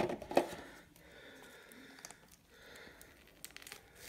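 Faint handling sounds of a plastic action figure and its plastic packaging tray: a sharp click about half a second in, then soft rustling and a few light clicks near the end.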